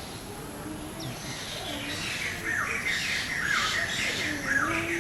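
Birds calling in an aviary: one gives a short falling call about once a second, over fainter high chirping from other birds.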